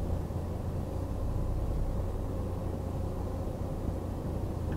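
Renault Trafic's Blue dCi 170 diesel engine running with a steady low rumble, heard inside the cabin as the van creeps along at parking speed.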